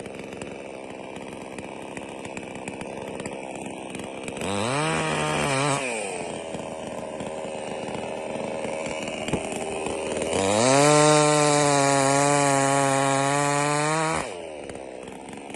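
Jonser BS5800 two-stroke petrol chainsaw idling, blipped up to speed and back once, then revved up and held at high revs for about four seconds before dropping back to idle, running free with no cutting.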